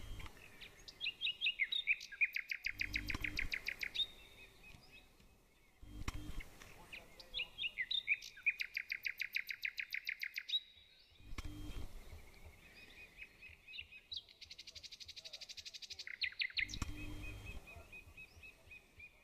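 Songbirds singing. A trilled phrase of rapid notes lasting about two seconds comes twice, and a higher, buzzier trill follows near the end.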